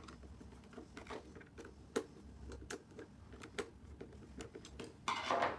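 Small Phillips screwdriver working the screws out of the back of a plastic remote: a run of small, irregular clicks and ticks, with a short scraping rustle about five seconds in.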